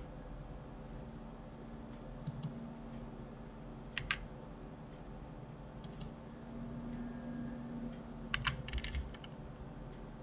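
Computer keyboard keys and mouse buttons clicked a few times, singly and in quick pairs, about every two seconds, with a short cluster of clicks near the end, over a steady low hum.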